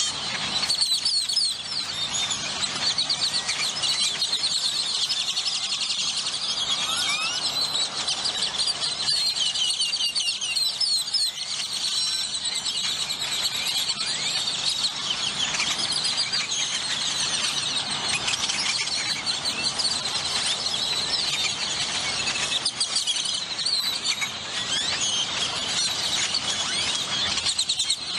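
A large flock of great-tailed grackles calling all at once: a continuous, dense chorus of overlapping high-pitched whistles and squeaks.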